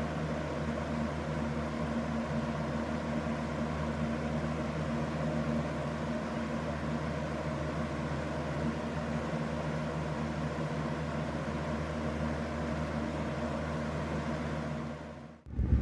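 Aerospeed BX100 box fan running steadily: a motor hum with an even rush of air from the blade. It cuts off abruptly near the end, and a louder low rumble comes in.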